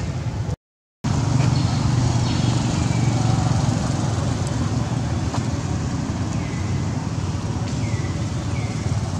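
Steady low outdoor rumble, like distant traffic or wind on the microphone, broken by a sudden drop to silence just under a second in. A few short, high falling chirps come near the end.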